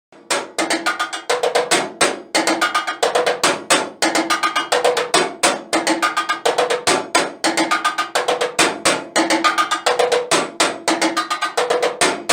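A staircase played as a drum with two tree branches for drumsticks: a fast, steady groove of dense strikes, with a lower and a higher pitched knock from the steps recurring about once a second.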